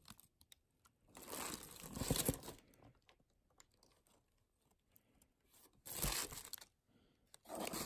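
Hands handling a cardboard box and its paper packaging, in three short bouts of noise: about a second in, about six seconds in, and near the end.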